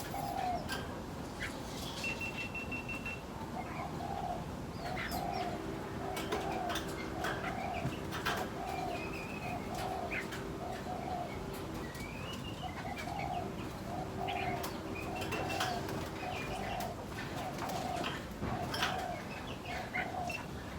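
Aviary birds: a dove cooing in two long runs of short, evenly spaced coos, about two a second, with scattered high chirps and clicks from other birds.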